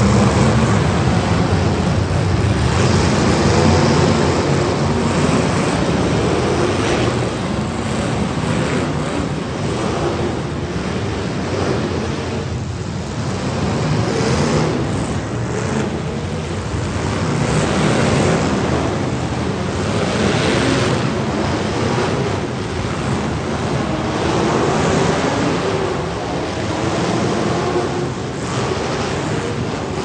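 Demolition derby cars' engines running and revving together, a dense rumble that swells and eases, echoing in an indoor arena amid crowd noise.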